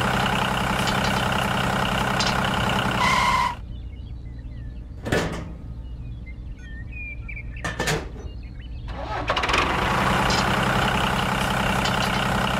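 Tractor engine running steadily. It drops away about three and a half seconds in, leaving a quieter stretch with two sharp knocks, and comes back a few seconds later.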